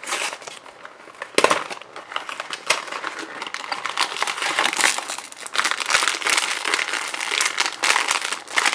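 A cardboard blind box being opened and its foil blind bag handled and opened, giving dense, crackly foil crinkling. It starts with a sharp crackle about a second and a half in.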